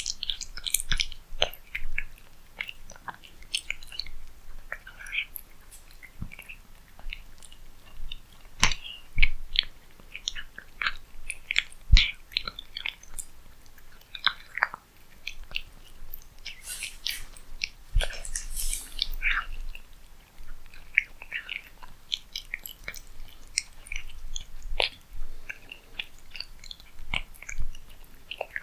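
Cat chewing and eating cat food: irregular wet smacks and clicks of the jaws and mouth, close up.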